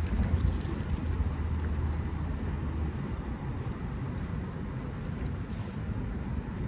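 Low, steady rumbling noise of wind on the microphone outdoors, with a low hum underneath that stops about three seconds in.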